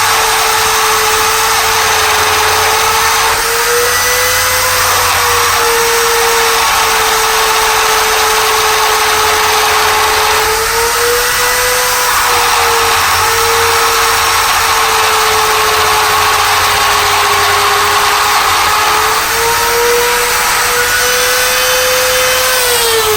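Dremel rotary tool running at high speed, a steady high whine over a grinding hiss that wavers slightly in pitch as it cuts. Near the end it is switched off and the whine falls in pitch as it winds down.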